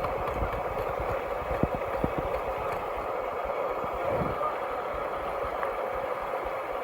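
Steady rushing of flowing creek water, with irregular low bumps of wind or handling on the microphone.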